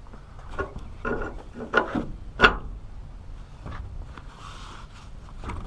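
Footsteps and handling noise: a string of uneven scuffs and knocks, the loudest about two and a half seconds in.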